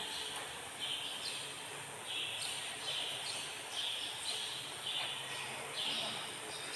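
Faint high chirping from a small animal, repeated about once a second, each chirp about half a second long.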